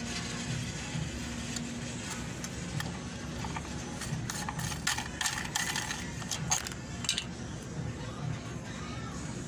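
Clicks and light rattling of small mechanical parts being handled during an electric fan repair, over a steady low hum; the clicks come in a cluster in the middle.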